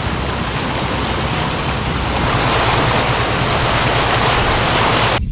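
Water rushing and splashing along the hull of a fishing boat under way, with wind on the microphone and a steady low engine hum beneath. The sound cuts off abruptly near the end.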